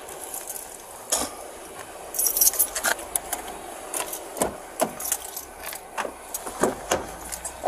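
Small metal objects jingling and clinking in short bursts, with scattered clicks and knocks, during a police pat-down of a man held against a cruiser.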